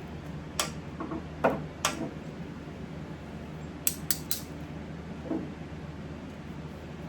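Small metal hand tools clicking and clinking sharply while working on the chassis during capacitor replacement: a cluster of clicks in the first two seconds, three quick ones about four seconds in and a softer one after, over a steady low hum.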